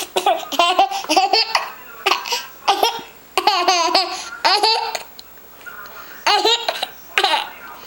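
A baby laughing hard, giggling in several runs of quick, high-pitched bursts with a short pause in the middle.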